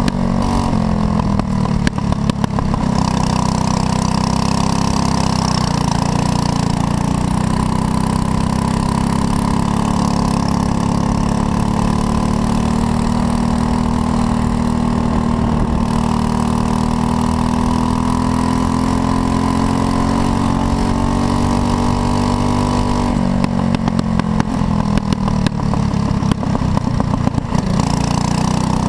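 Racing go-kart engine at speed, heard from the driver's seat, its revs dropping off under braking and climbing again as the throttle opens. The pitch dips and recovers right at the start, holds high through most of the lap, then falls for several seconds near the end before rising again.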